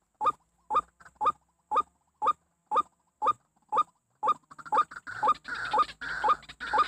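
White-breasted waterhen calling: a steady series of short, upward-sweeping calls, about two a second. About halfway through, a thicker rustling noise starts up between the calls and keeps going.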